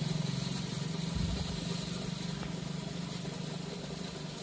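A small engine running steadily with a fast, even pulse, slowly fading.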